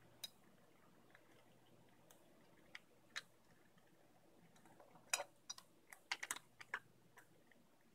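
Egyptian Mau cats crunching dry cat kibble from a bowl: sparse sharp crunching clicks, with a quick run of them about five to seven seconds in.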